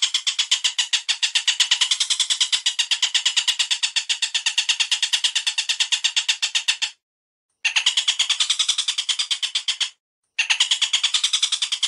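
Bird calls from a song-training recording of cililin and tengkek buto: a fast, even rattle of sharp notes, about ten a second. It comes in long runs, broken by two short pauses, one about seven seconds in and one about ten seconds in.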